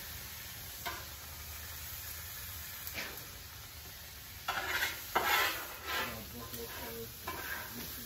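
Butter and garlic sizzling steadily on a hot hibachi grill, with a few short clicks and louder bursts of stirring from about four and a half to six seconds in.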